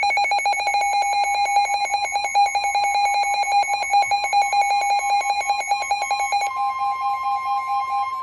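NOAA Weather Radio warning alarm tone, a steady single pitch signalling that a warning broadcast follows, under a louder, rapidly pulsing lower alert beep. About six and a half seconds in the steady tone comes to the fore as the beeping fades, and the beeping stops near the end.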